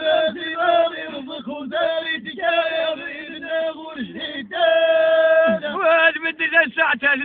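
An elderly man's solo voice chanting sung verse, the melody bending up and down between short phrases, with one long held note about two-thirds of the way through.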